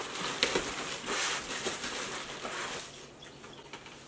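Rustling of packaging with a few light knocks as a sewing machine servo motor and its parts are packed back into their box, dying down about three seconds in.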